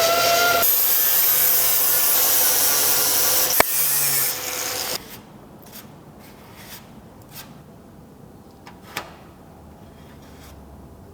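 Power sander or grinder abrading the repaired car quarter panel, a loud rasping with a faint whine and a sharp click partway through. It stops abruptly about five seconds in, followed by a few faint taps.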